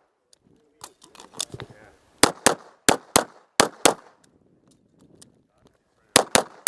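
Pistol shots fired in quick pairs, a double-tap on each target. Three pairs come in quick succession in the middle, then there is a pause with only faint knocks, then another pair near the end.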